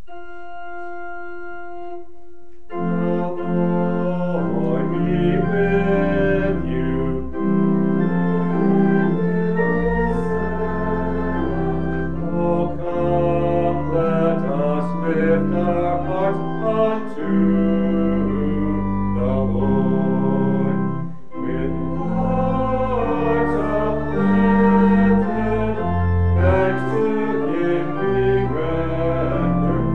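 Church organ playing: a single held note at first, then full chords over a moving pedal bass from about three seconds in.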